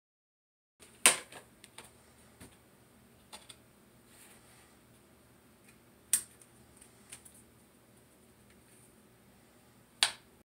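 Sharp plastic clicks and handling sounds from working with a plastic coffee canister and a single-serve coffee pod: three loud snaps, about a second in, a little past the middle and near the end, with quieter clicks and rustling between.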